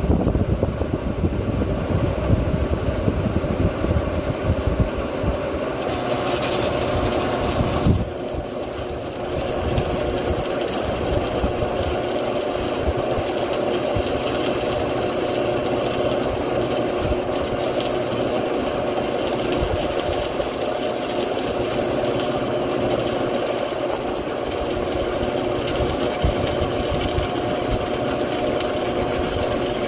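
Lincoln Idealarc 250 transformer welder humming, then going under load: from about six seconds in, a welding arc crackles and hisses steadily over a louder transformer buzz. There is a sharp click about eight seconds in.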